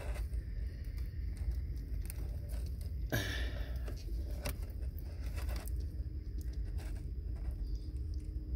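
Wire strippers and thin automotive wiring being handled and worked in a cramped engine bay: scattered light clicks and rustles, with one longer scraping rustle about three seconds in, over a steady low rumble.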